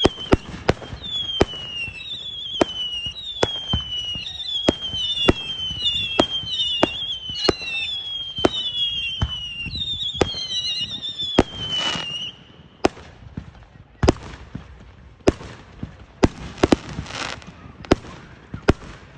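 Fireworks going off in a rapid series of sharp bangs. For about the first twelve seconds, overlapping high whistles fall in pitch one after another among the bangs. After that the bangs continue on their own.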